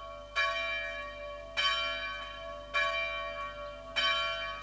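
A church bell tolling: one bell struck four times, about one stroke every second and a quarter, each stroke ringing and fading before the next.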